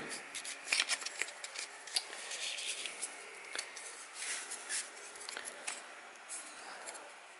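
Irregular small clicks and rubbing as a Drill Doctor sharpener's bit chuck is turned in the hands to close its jaws on a half-inch drill bit, thinning out near the end.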